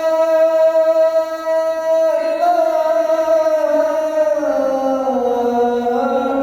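The adhan (Islamic call to prayer) chanted solo in the Kurdi maqam, the voice dry with no added echo or effects. One long note held steady, then from about two seconds in a slow, ornamented descent in steps to a lower note.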